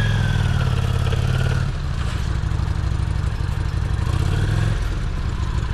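A vehicle engine running at low speed. Its note shifts lower at about two seconds in, then rises for a moment near four seconds in and falls back.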